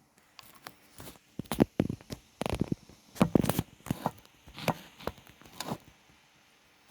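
A series of about ten irregular knocks, clicks and rustles of things being handled, some with a dull low thud, spread over about four seconds.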